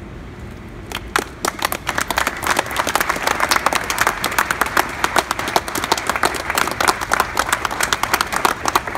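Audience applauding: a few claps about a second in that quickly build into dense, steady clapping from many hands.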